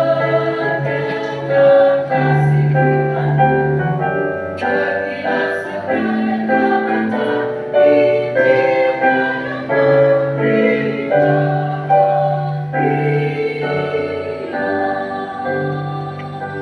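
A mixed choir singing a sacred song with keyboard accompaniment. The singing dies away near the end.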